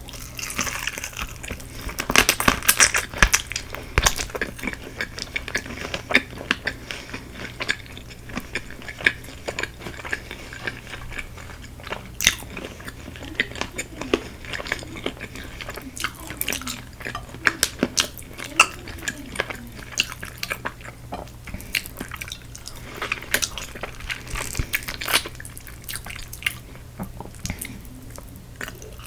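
Close-up crunching and chewing of crispy Korean fried chicken: many quick, irregular crackles of the crust being bitten and chewed.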